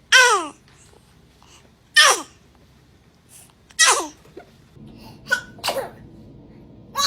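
A baby sneezing three times, about two seconds apart, each sneeze a short squeaky sound that falls in pitch. A few fainter short sounds follow near the end.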